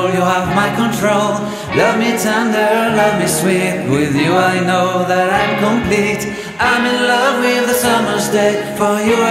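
A song with sung vocals over music.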